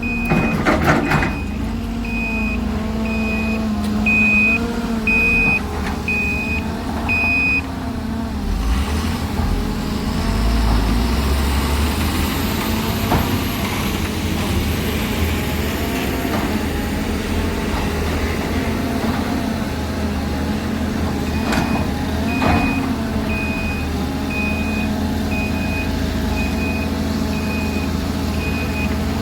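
Heavy diesel earthmoving machinery running under load, an excavator loading a dump truck. A reversing alarm beeps evenly for the first several seconds and again through the last third, and a few sharp knocks are heard.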